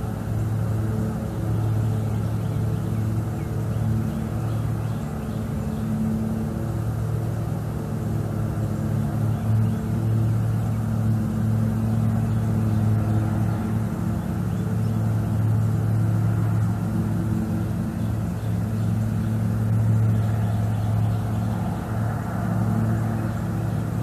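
A steady, low, distant motor hum with a constant pitch that swells and eases slightly in strength.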